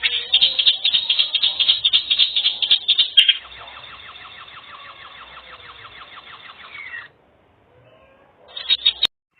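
Animal calls: a rapid run of pulsed chirps for about three seconds, then a steady buzzing trill that stops abruptly after about four seconds, and a short burst of calls near the end.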